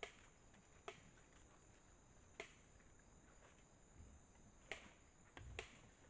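Sharp, isolated cracks every second or two, with several close together near the end, typical of a feeding animal crunching whole corn kernels. There is a low dull thump near the end and a faint steady high hiss throughout.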